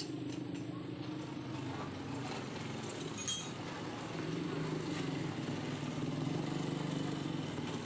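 A motor running steadily, a little louder in the second half, with one light metal clink about three seconds in.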